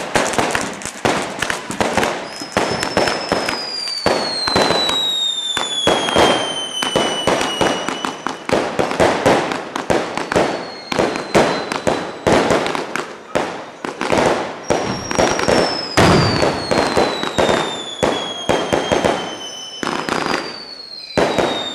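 Fireworks going off: rapid crackling bangs of firecrackers throughout, with a high whistle that slides slowly down in pitch twice, a few seconds in and again after the middle.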